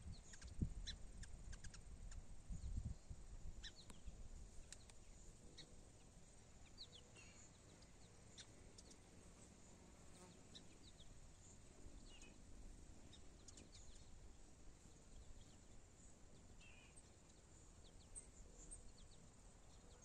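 Near silence with faint ambience: scattered short, high bird chirps and ticks, and a low rumble in the first three seconds.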